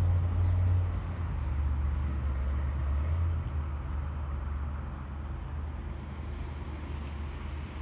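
Low rumble of distant thunder rolling over the water, loudest at first and slowly fading away over several seconds.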